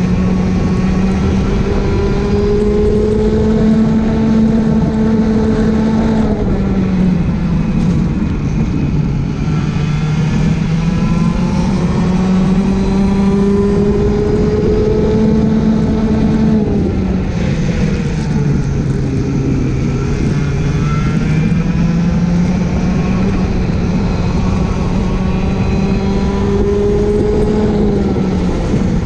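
Racing kart engine heard onboard at full race pace. Its pitch climbs slowly along each straight and drops sharply under braking for a corner, three times about every eleven seconds, over a constant rushing noise.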